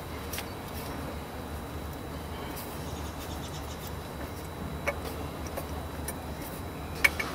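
A few light clicks and taps of metal parts as a new oil pickup pipe is held up and fitted to the engine block, with a couple of sharper clicks near the end. A low steady hum runs underneath.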